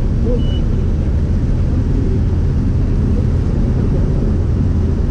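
Light single-engine aircraft's piston engine and propeller running with a steady drone, heard inside the cockpit. A short high beep sounds about half a second in.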